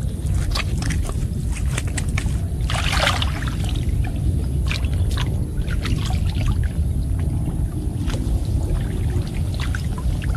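Water sloshing and splashing in a flooded field, in many short irregular splashes with one louder splash about three seconds in, over a steady low rumble.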